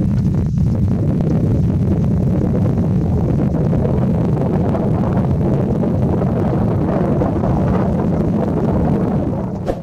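Steady, loud low rumbling noise with no clear pitch, fading out at the very end.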